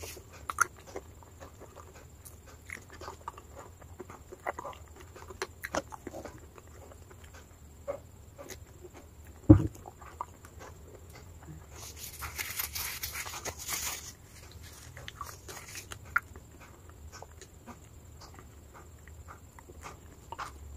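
Close-miked mouth sounds of eating wet chalk paste: scattered wet clicks and smacks. A single loud thump comes about halfway through, and a noisy stretch lasts about two seconds a little after.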